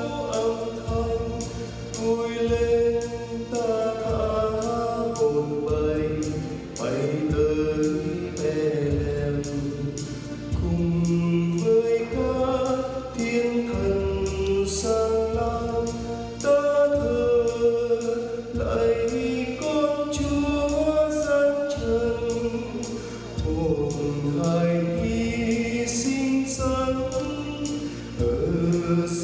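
Church choir singing a Vietnamese hymn in several voices over instrumental accompaniment.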